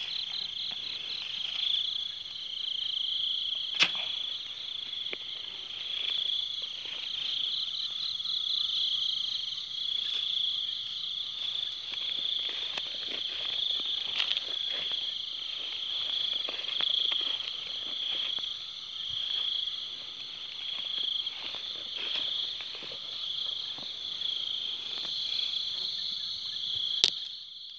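A steady, high-pitched chorus of night insects chirring, with a sharp click about four seconds in and another near the end.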